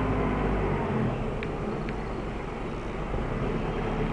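Car engine running at low speed with tyre and road noise, heard from inside the car's cabin as it moves slowly.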